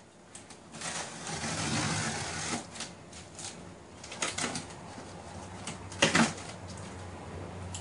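Utility blade cutting through packing tape on a cardboard box: a long rasping rip about a second in, then sharp cardboard clicks and crackles, the loudest about six seconds in, as the tape parts and a flap is lifted.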